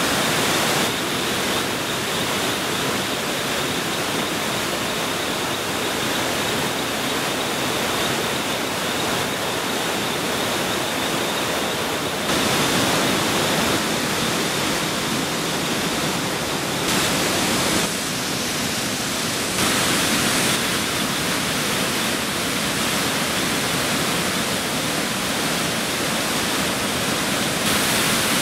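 Waterfall rushing: a steady, loud noise of falling water that jumps abruptly in level several times.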